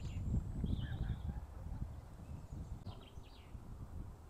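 Wind rumbling unevenly on the microphone, with a few short bird chirps about a second in and again around three seconds in.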